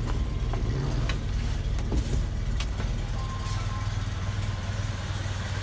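Classic Alfa Romeo GTV's twin-cam four-cylinder engine idling steadily soon after a cold start, heard from inside the cabin.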